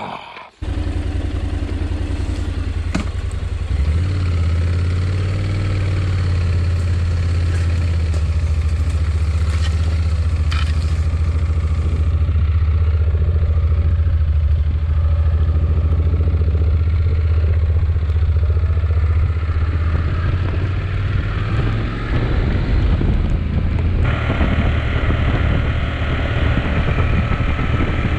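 Honda NC750X motorcycle's parallel-twin engine running steadily, heard from the rider's position. Wind and road noise build up near the end.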